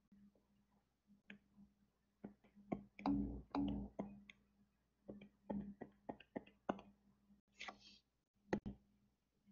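Pen stylus tapping and scratching on a tablet screen while drawing and shading: a run of faint, irregular clicks and a short scratch near the end, over a faint steady hum.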